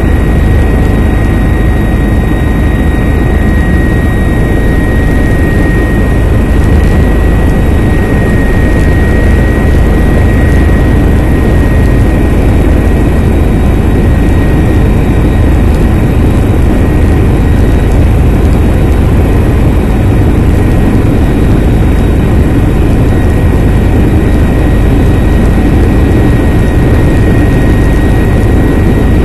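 Helicopter in flight: loud, steady rotor and engine noise with a steady high whine above it.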